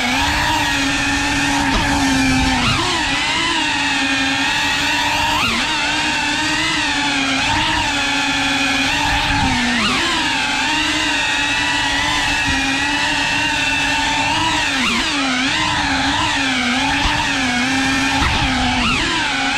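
FPV quadcopter's brushless motors and propellers running with a steady whine, the pitch dipping and swooping back up several times as the throttle is worked.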